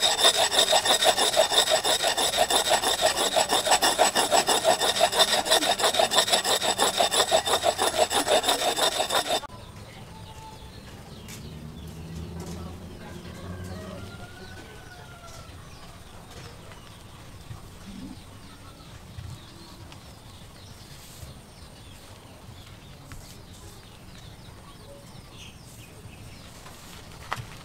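Steel axe head being sharpened by hand on a flat stone, with fast back-and-forth scraping strokes. The scraping stops abruptly about nine seconds in.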